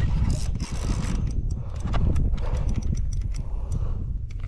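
Wind rumbling on the microphone, with scattered irregular clicks and knocks.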